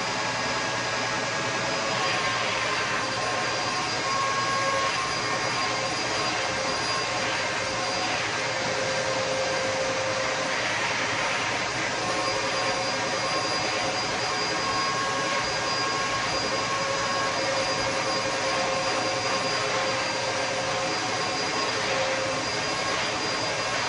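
Steady machine noise: a continuous rushing sound with a few faint constant whining tones, unchanging throughout.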